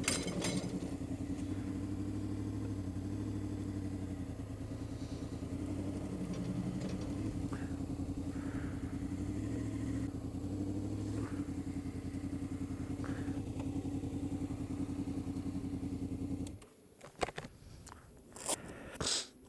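Honda VFR800's V4 engine running at low speed as the motorcycle is ridden slowly and turned around, then switched off about three-quarters of the way through. A few sharp clicks and knocks follow near the end.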